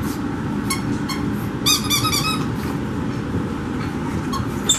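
Squeaky plush dog toy squeaking as a puppy chews it. It gives one short squeak, then a quick run of about five squeaks about two seconds in, then another near the end, over a steady background hum.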